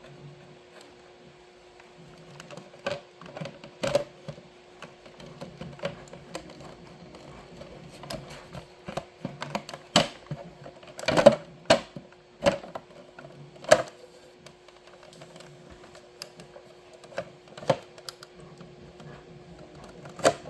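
Plastic casing parts of a Nespresso U coffee machine being handled and fitted back together: irregular clicks and knocks, the loudest a few sharp ones about ten to fourteen seconds in.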